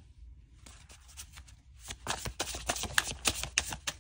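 A deck of tarot cards being shuffled by hand: faint card rustles at first, then a quick run of crisp flicking clicks from about halfway through.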